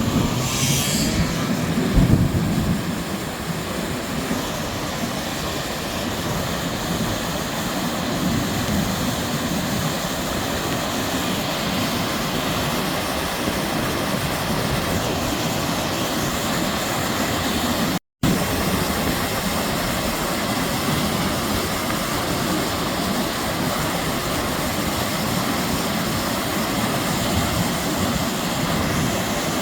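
Steady rushing roar of a heavy downpour. There is a brief knock about two seconds in, and the sound cuts out for a moment about eighteen seconds in.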